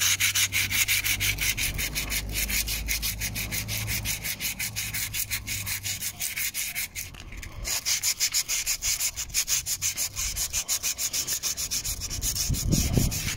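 Hand sanding curb rash on a car wheel rim with 240-grit sandpaper: quick, even back-and-forth rubbing strokes, about five a second, pausing briefly about halfway through.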